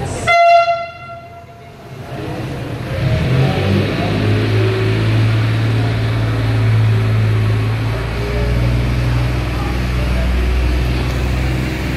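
A horn sounds one steady tone for about a second and a half, then stops. A tour boat's motor then runs with a steady low drone, deepening a little near the end.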